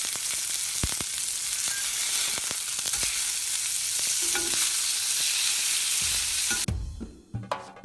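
Chicken deep-frying in hot oil: a steady sizzle with scattered sharp pops, which stops suddenly about two-thirds of the way in. A few low knocks follow near the end.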